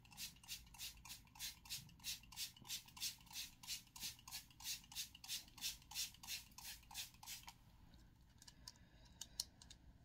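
Spray bottle of water squirted over and over in quick succession, about four short hissing sprays a second. The spraying stops about seven and a half seconds in, followed by a few faint clicks.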